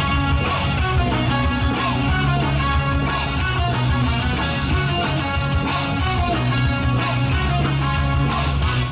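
Loud pop-rock music over a stage sound system, instrumental with guitar and a steady drum beat over a heavy bass line.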